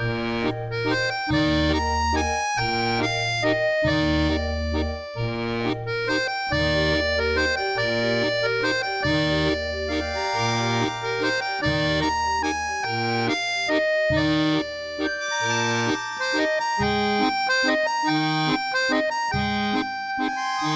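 Accordion music: a melody of held notes over a steady, regularly repeating bass line.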